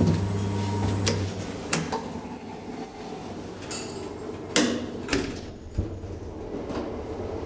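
DEVE hydraulic elevator arriving at a floor: the steady low hum of its hydraulic drive cuts off a little over a second in as the car stops, with a few clunks. A few seconds later the cab door slides open with a couple of knocks.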